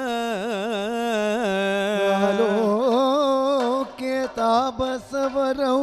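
A solo voice singing a Kathakali sloka in Sanskrit, slow and heavily ornamented, with long held notes that waver up and down. There are a few short breaks between phrases near the end.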